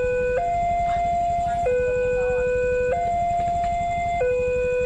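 Railway level-crossing warning alarm from the horn loudspeaker on the crossing signal pole. It is an electronic two-tone sound that swaps between a higher and a lower tone about every 1.3 seconds, warning road traffic that a train is approaching the closed crossing.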